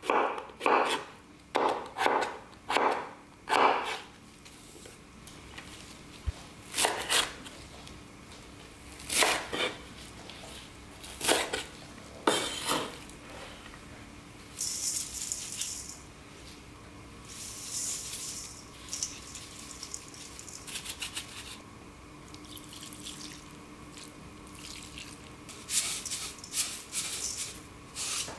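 Chef's knife slicing a cucumber on a wooden cutting board, about six even strokes in the first four seconds. After that come a few separate knocks and short spells of soft, hissing rustle as chili flakes and sesame seeds are sprinkled into a steel mixing bowl of vegetables.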